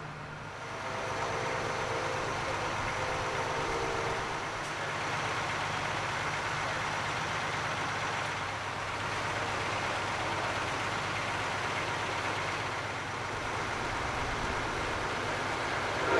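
Steady engine and rumble noise of a heavy vehicle running. A loud horn blast starts at the very end.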